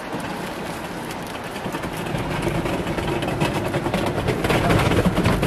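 Steady rumbling background noise with light scraping from a thin metal spatula spreading batter across a metal egg-bread griddle tray. The level builds slightly toward the end.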